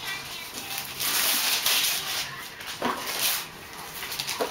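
Wrapping paper rustling and tearing as a toddler rips it off a boxed present, in rough bursts. A short squeal about three seconds in and another near the end.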